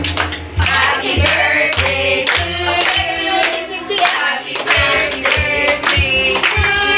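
A group singing a birthday song, with hand clapping in a steady beat.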